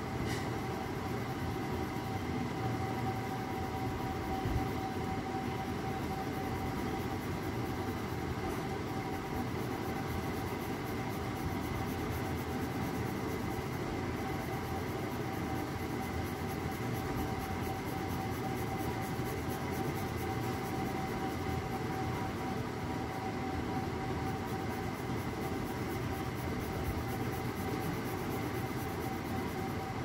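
Graphite pencil shading on drawing paper, faint scratchy strokes, over a steady mechanical hum with a constant tone in it.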